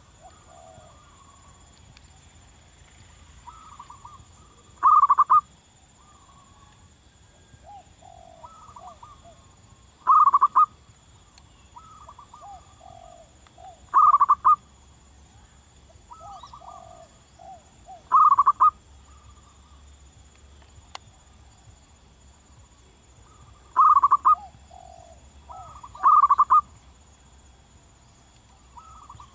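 Zebra dove calling: short, loud coos repeated about every four seconds, with softer, lower cooing notes that fall in pitch between them.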